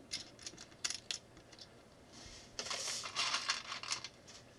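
Small plastic building bricks clicking and rattling as they are handled and rummaged in a plastic tub: a few sharp clicks in the first second, then a longer rattle a little past the middle.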